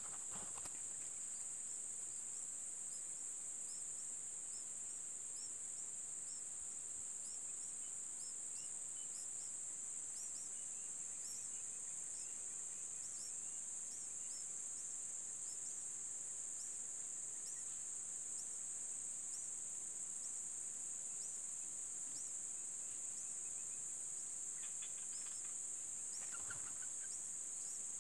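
Steady high-pitched drone of insects, with short high chirps repeating throughout and a few brief calls near the end.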